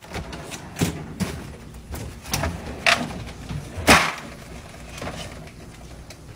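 Plastic freezer ice drawer and its ice cubes clattering and knocking as dogs push their heads into it, with about five sharp knocks among lighter ticks that die down near the end.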